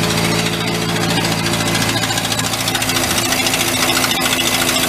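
Gasoline engine of a vintage engine-driven air compressor running steadily under load, building air pressure with the outlet shut off. The engine note shifts about two seconds in.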